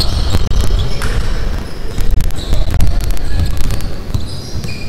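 Basketball bouncing on a hardwood court, with short high squeaks of sneakers, over a steady low rumble.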